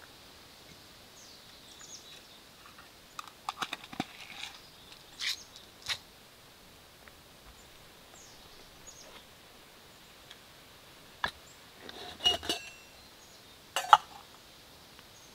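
Titanium camp cookware clinking and tapping as pieces are handled and set down: a cluster of sharp clinks a few seconds in and more near the end, one with a brief metallic ring. Faint bird chirps in the background.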